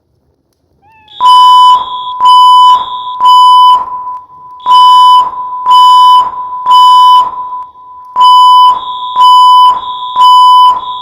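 Building fire alarm sounding the temporal-three evacuation signal: a loud, high-pitched beep in sets of three with a short pause between sets, starting about a second in and repeating three times.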